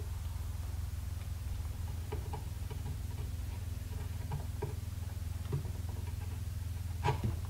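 Small hand chisel paring wood from a rifle stock's trigger-guard mortise: a string of light clicks and scrapes, with a sharper double click near the end, over a steady low hum.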